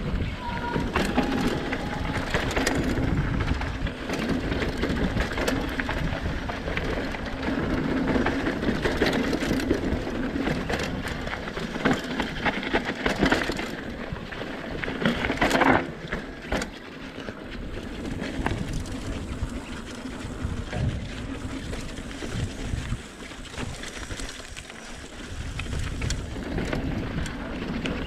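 Mountain bike rolling down a dirt flow trail: the tyres run steadily over the dirt and loose gravel, and the bike rattles. A sharper clatter comes about halfway through.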